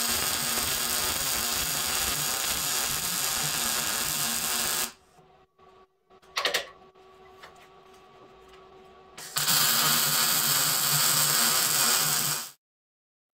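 MIG (wire-feed) welder arc welding steel plates onto a truck frame rail: a steady crackling buzz for about five seconds, a pause of about four seconds with a faint hum and one brief sharp sound, then a second run of about three seconds that cuts off shortly before the end.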